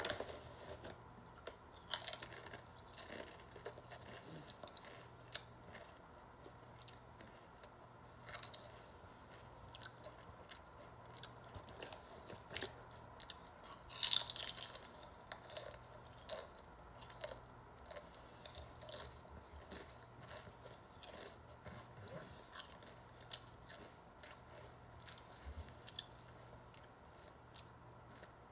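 Someone crunching and chewing seaweed salt potato chips, faint, with many small crisp crackles and a few louder crunches about 2, 8 and 14 seconds in.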